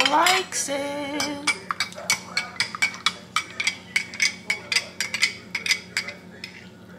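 A stirrer clinking rapidly against the inside of a glass mug as a drink is stirred, about four clinks a second, dying away near the end. A short sung note comes just before the clinking starts.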